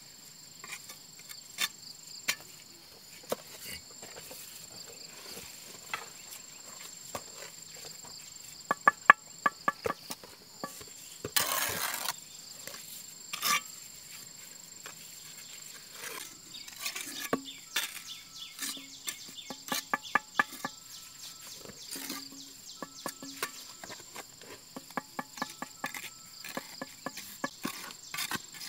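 Steady high-pitched chirring of insects all through, with scattered sharp knocks over it. Quick runs of ringing strikes come about nine seconds in and again around twenty seconds, and there is a brief rushing burst in between.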